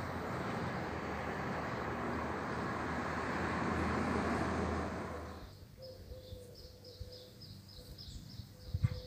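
A vehicle passing on the road, its noise swelling to a peak about four seconds in and then falling away quickly. After it, a small bird chirps over and over, about three chirps a second, with a low thump near the end.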